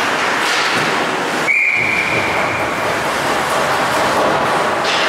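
Ice hockey referee's whistle blown once, a single high steady blast of just over a second starting about a second and a half in, the signal that stops play. Under it runs the steady noise of the rink.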